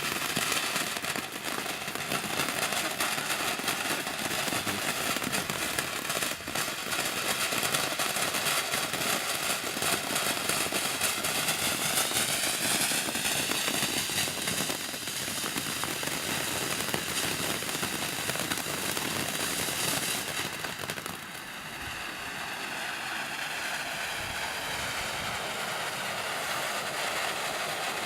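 TNT Color Blast firework burning with a continuous hiss and crackle, easing off a little about twenty seconds in.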